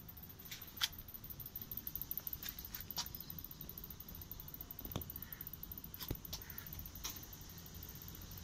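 Low steady background noise with a few faint, scattered sharp clicks.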